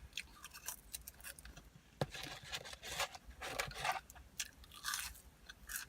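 A person chewing a mouthful of cheeseburger close to the microphone: irregular wet mouth smacks and clicks, with one sharper click about two seconds in.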